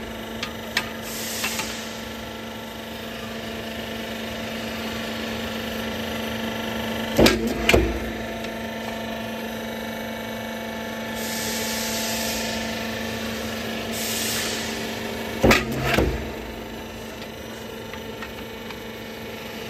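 Metal fence panel roll forming machine running with a steady hum while its flying-cut die cuts the formed steel profile: a pair of sharp metal clanks about half a second apart, twice, about eight seconds apart, with two short hisses in between.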